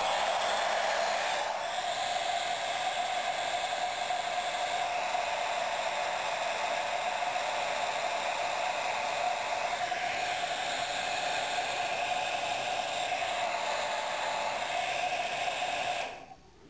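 Heat gun running steadily, blowing hot air onto a model glow engine's aluminium crankcase to warm it so the cylinder can be taken off; it switches off near the end.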